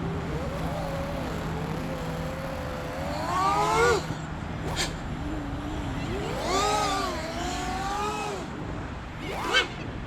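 Nazgul Evoque F5x V2 FPV quadcopter's brushless motors and propellers whining in flight, the pitch rising and falling with the throttle. There are swells of throttle about three to four seconds in, again around seven seconds, and a short sharp one near the end, over a steady rush of wind.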